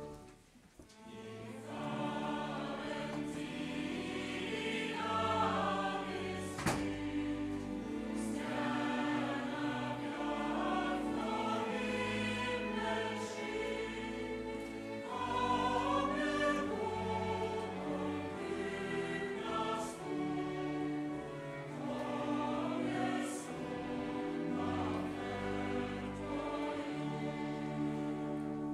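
Mixed choir singing a Christmas hymn with a chamber string orchestra accompanying, coming in after a short pause near the start. A single sharp click sounds about seven seconds in.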